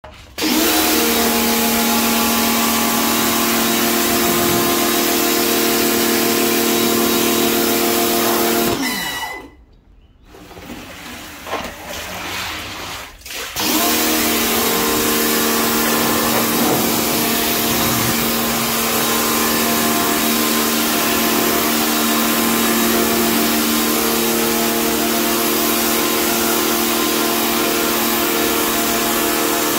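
Compact electric pressure washer running with a steady motor-and-pump hum as the wand sprays water. About nine seconds in the motor winds down with a falling whine and stops, then starts again abruptly about four seconds later and runs on steadily.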